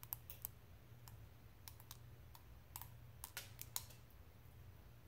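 Silica desiccant beads soaking in water in a plastic mixing cup, cracking and popping: faint, irregular sharp clicks. The beads are breaking apart into shards as they take on water.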